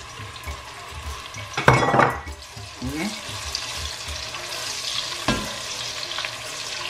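Sliced onions sizzling in hot palm oil in an enamelled pot, stirred with a spatula: a steady frying hiss, with a louder clatter of utensil on the pot about two seconds in and a sharp tap a little after five seconds.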